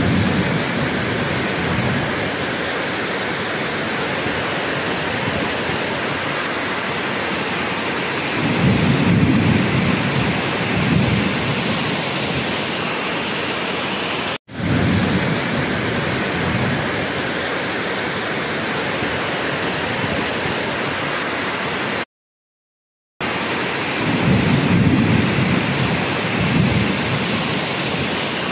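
Heavy rain falling steadily, a dense hiss with low rumbling swells now and then. The sound cuts out briefly about two-thirds of the way through.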